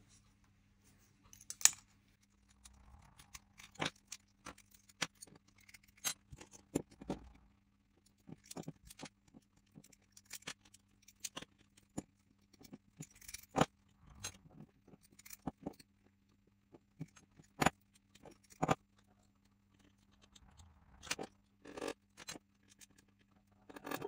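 Small metal clicks, taps and clinks as a six-pin Euro profile lock cylinder is taken apart by hand, its plug, pins and springs set down one by one into a plastic pin tray.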